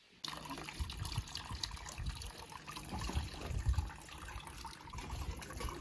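Water running and trickling, starting abruptly a moment in, with uneven low rumbling underneath.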